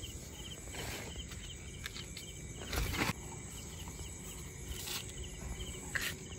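A cricket chirping steadily, about three short pulsed chirps a second, over low background noise. About three seconds in, a brief louder rustle as the nylon net holding the fish is handled.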